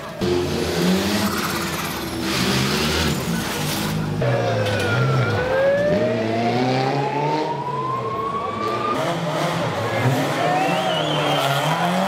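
Rally car engines revving hard, the pitch rising and dropping through gear changes, with one long climbing note as a car accelerates around the middle.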